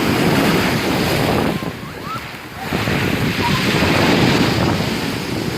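Storm waves on the Black Sea crashing and washing on the shore, with wind buffeting the microphone. The surf eases about a second and a half in, then the next wave surges back up loudly.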